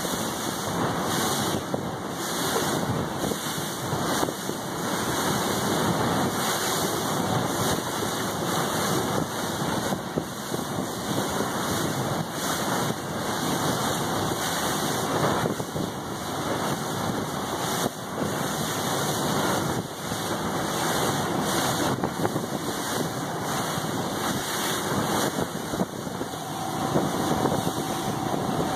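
Wind buffeting the microphone over the steady noise of water and a small motorboat running, heard from aboard the boat. A faint steady whine comes in near the end.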